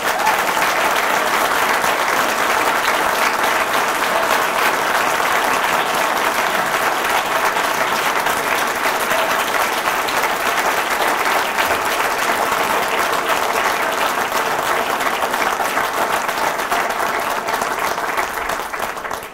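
A roomful of people applauding steadily, a standing ovation that sets in at once and dies away near the end.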